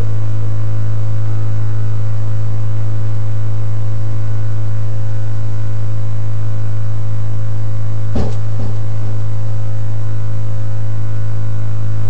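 Loud, steady electrical hum with a stack of fainter higher tones above it, and two short clicks about eight seconds in.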